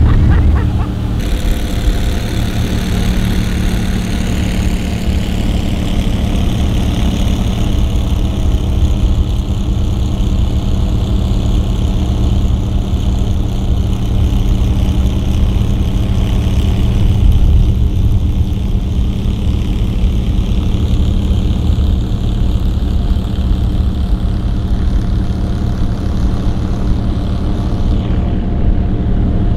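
Small boat's outboard motor running steadily at planing speed, one even drone that holds its pitch throughout.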